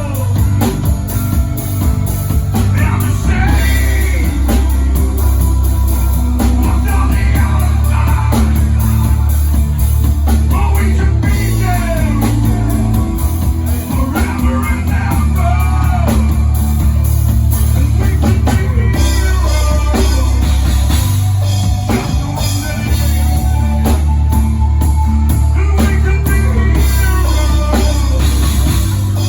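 Live rock band playing a song: sung vocals over electric guitar, a heavy bass line and a drum kit.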